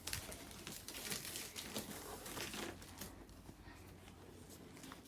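Packaging being handled, crinkling and rustling in quick, irregular bursts that die down after about three seconds.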